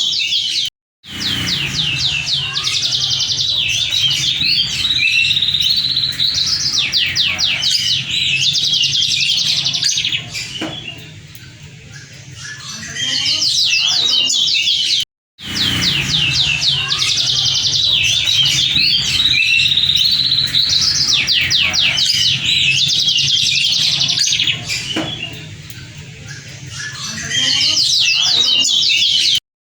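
Moken, a yellow-fronted canary × domestic canary hybrid, singing a long, varied song of fast high trills and chattering phrases. The song breaks off for a moment about a second in and again halfway through, and the same passage then repeats.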